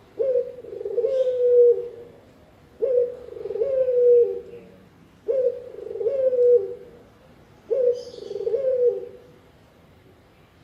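Dove calling: four repeated low cooing phrases, one about every two and a half seconds, falling quiet near the end.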